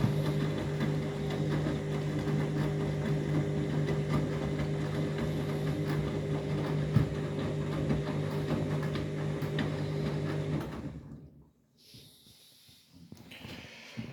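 Washing machine on a high-speed spin, its drum and motor running at a steady pitch with a constant hum, then falling away quickly about eleven seconds in.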